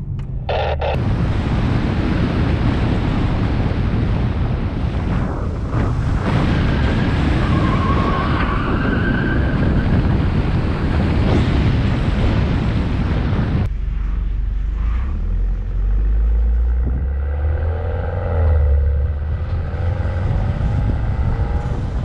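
BMW car being driven hard through a coned handling course. For the first dozen seconds loud rushing wind and road noise covers the engine. About fourteen seconds in the sound changes suddenly to the engine's low rumble, with wavering rising and falling tones as it revs.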